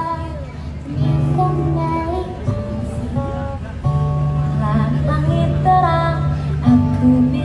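Live singing by a young girl and a woman at microphones, accompanied by an acoustic guitar.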